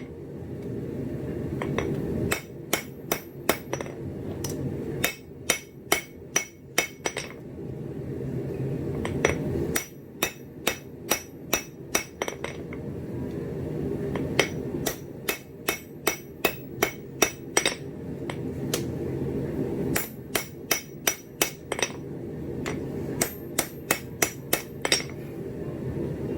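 Hand hammer striking hot steel on an anvil in short runs of about five to eight ringing blows, roughly three or four a second, while a pizza cutter is forged. Between the runs a steady low rushing noise fills the pauses.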